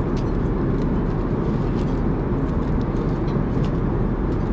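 Steady low rumble of cabin noise inside an Airbus A380, with a few faint small clicks.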